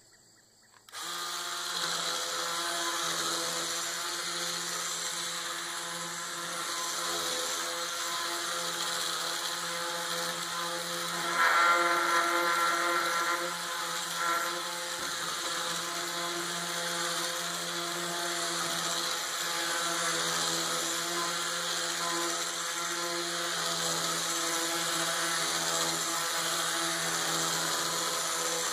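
Ryobi One+ P400 18-volt cordless corner sander, a vibrating palm sander, switching on about a second in and running steadily as it sands wood boards with 100-grit paper. Near the middle it turns louder and higher for about two seconds.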